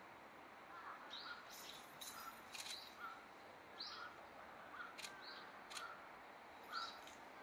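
Faint chirping of small birds: short chirps repeating every half second or so over a quiet background hiss. Two sharp clicks come a little past the middle.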